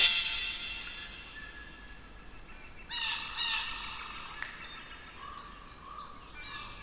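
Small birds calling: a few chirps about three seconds in, then a quick run of short down-slurred chirps near the end. A loud rush of noise fades away in the first second.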